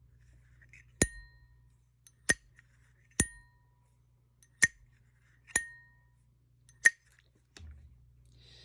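Zippo lighter lids being flicked open and snapped shut: six sharp metallic clicks about a second apart, each with a short high-pitched ring. Three of the clicks ring on longer than the others.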